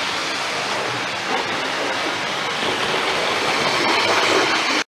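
Model railway Class 43 HST power car running along the track: the steady running noise of its motor and wheels, growing louder as it passes close by, then cut off suddenly at the end.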